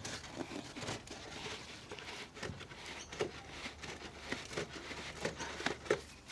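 Irregular light clicks and rustles of hands working with parts and materials during a vehicle snorkel install.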